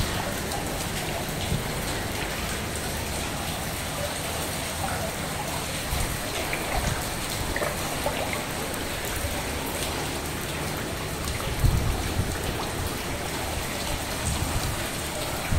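Steady rain falling on floodwater, an even hiss with scattered small drip ticks, and a few low bumps late on.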